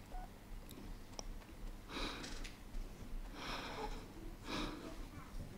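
A woman sniffing close to a microphone: three short sniffs, roughly a second or so apart, beginning about two seconds in, over quiet room tone.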